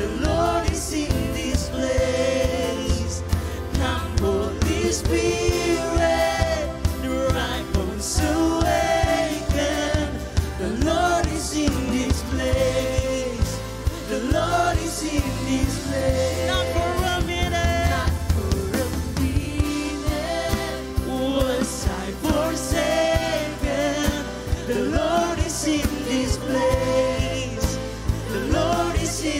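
Live worship band playing a Christian worship song: a male lead vocal sung into a handheld microphone over a steady drum beat and bass.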